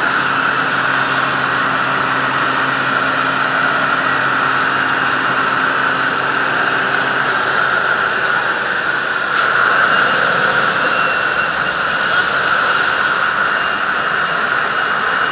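Jump plane's engine and propeller running steadily in flight, heard inside the cabin as a loud, even drone. The low engine hum thins out about halfway through.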